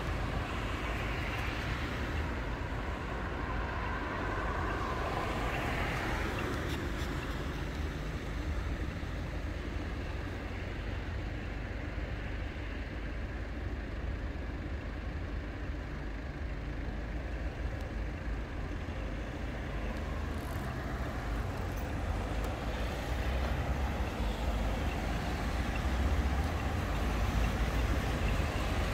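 Ride noise from a moving e-bike: wind buffeting the camera microphone and tyres rolling on the road, a steady low rumble that gets a little louder in the last few seconds.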